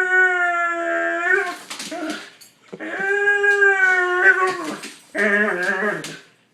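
Dog howling and whining in long, drawn-out pitched calls: one carrying on from before and breaking off a little over a second in, another held for nearly two seconds, then a shorter, rougher and lower call near the end.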